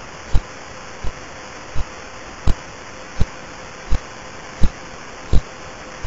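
Radio pulses of the pulsar B0329+54 converted to audio: a regular train of low thumps, about three every two seconds, some stronger and some weaker, over a steady hiss.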